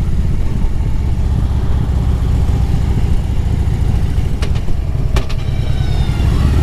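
Harley-Davidson Road Glide's V-twin engine running steadily while riding, with wind and road noise. A few sharp clicks come about four and five seconds in, and a faint falling whine follows near the end.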